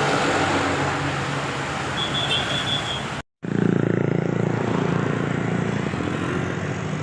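Road traffic running steadily. Then, after a sudden break in the audio, a large vehicle's engine runs loudly close by for a few seconds, as a bus passes.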